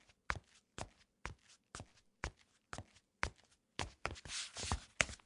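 Sneaker footsteps on a tile floor, evenly spaced at about two steps a second. About four seconds in they bunch into a quicker flurry with a brief scuffing of the soles.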